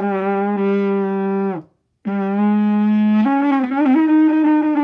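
Trumpet blown in long held notes: one note, a short break, then the same note again, which steps up slightly partway through and wavers before it ends.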